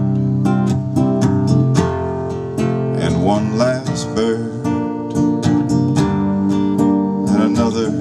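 Acoustic guitar strummed live in a steady, repeating pattern of strokes over held chords, an instrumental passage of a slow folk song.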